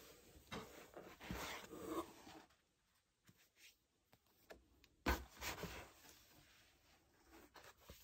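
Paperback manga volumes rubbing and sliding against one another and against a cardboard shipping box as they are lifted out, with one sharp knock about five seconds in.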